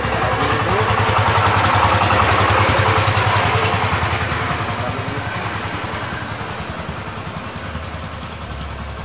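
A motor vehicle engine passing close by, with an even pulsing beat. It grows louder over the first two to three seconds, then slowly fades away.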